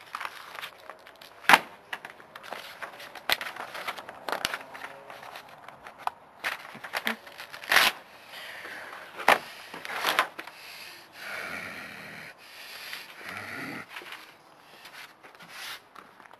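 Paper handling on a table: sharp taps and knocks as a spiral notebook is opened, flipped through and set down. About halfway through, a sheet is torn out along the spiral binding with several seconds of rasping tearing and paper crinkling.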